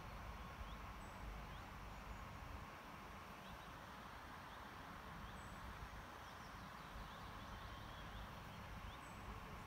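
Faint steady rumble and hum of an ED4M electric commuter train still some way off, with birds calling in short rising chirps again and again.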